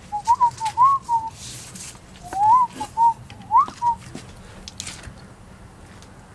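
A person whistling a short tune in two phrases, the pitch sliding up and down between notes, with a few light clicks and knocks of handling around it.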